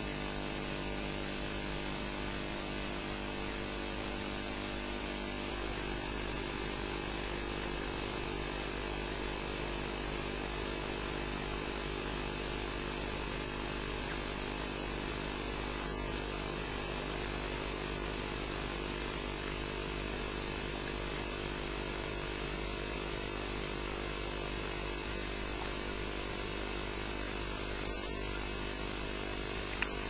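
Steady electrical mains hum with a constant high-pitched whine over an even hiss: the background noise of a nest-camera audio feed.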